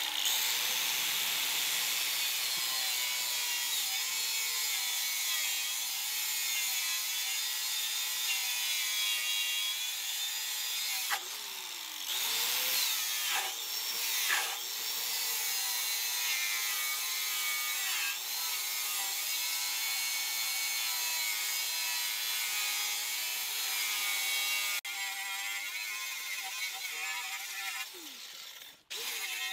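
Angle grinder with a twisted wire wheel running against rusty steel, stripping rust and old paint down to bare metal. A steady hissing scour over a motor whine that wavers in pitch as the wheel is pressed into the metal. It breaks off briefly a few times.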